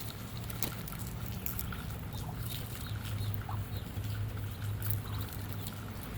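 Rain pattering in many small ticks over a steady low hum, with faint short peeps from ducklings.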